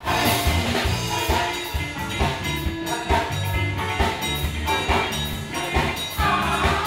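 Live band playing an upbeat song with drum kit, electric guitar, saxophone and keyboard. The drums keep a steady beat of about two hits a second.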